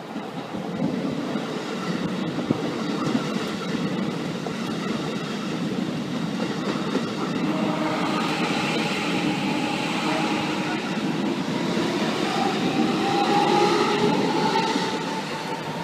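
Keikyu 1000-series electric commuter train arriving and running slowly past on the rails, its noise growing as the cars come alongside. In the second half a whining tone rises slightly in pitch over the wheel rumble and clatter.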